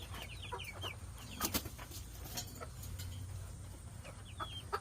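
Faint short falling chirps from birds, in quick runs near the start and again near the end, with a single knock about a second and a half in.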